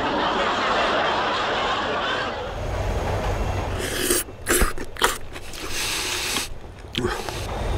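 Train running in a tunnel, then a run of short, loud slurping and chewing noises of someone gobbling noodles in the dark, about four seconds in.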